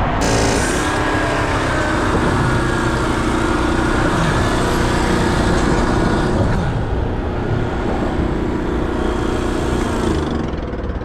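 An engine running steadily, with a constant hum under a wide rushing noise and a small dip in pitch about six seconds in.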